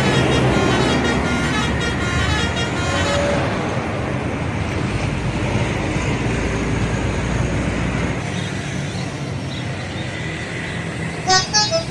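Bus telolet horns: a multi-tone melody of quick stepped notes fades out in the first three seconds, leaving steady road traffic noise. Near the end another telolet horn starts a fast run of short notes jumping up and down in pitch.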